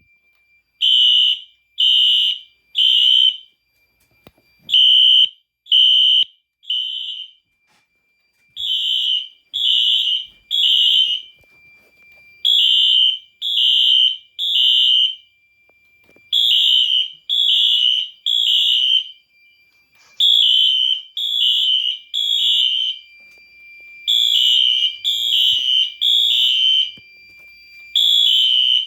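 Two Wheelock horn strobes, an AS-24MCW and an NS2475W, sounding a harsh high horn tone in temporal code-3: three half-second blasts, a pause of about a second and a half, then again, about every four seconds. The two horns run slightly out of step, so some blasts sound doubled, with the fire alarm system in alarm.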